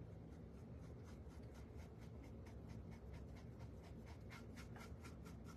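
Faint, quick, even scratching of a paint pen drawing a stripe on a small cutout star.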